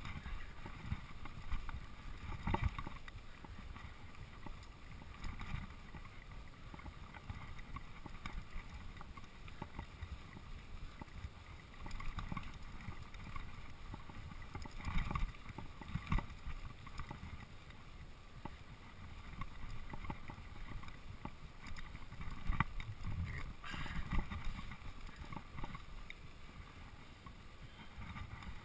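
Mountain bike riding fast down dirt singletrack: a steady rumble of tyres on dirt and wind over the microphone, with the bike rattling and a few sharp knocks as it hits bumps.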